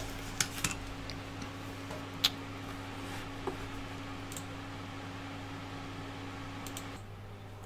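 A few light clicks and taps as a 3D-printed plastic assembly is handled and set down on a table along with a screwdriver, over a steady low hum that eases slightly near the end.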